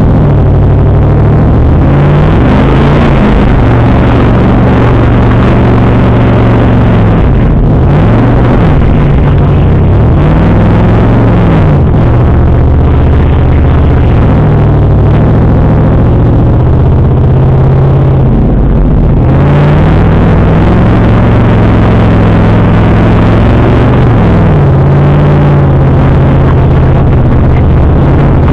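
Off-road vehicle's engine revving up and down repeatedly under load as it drives over sand dunes, heard loud from inside the cabin.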